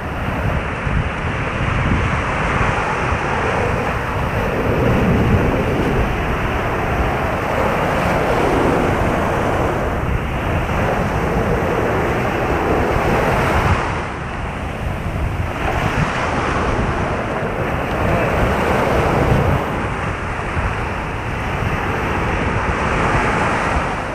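Ocean surf breaking and washing through the shallows, the rush of water swelling and easing every few seconds.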